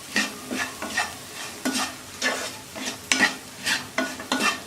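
Green peas frying in oil in a pan while being stirred, the utensil scraping the pan in short strokes about twice a second over a light sizzle.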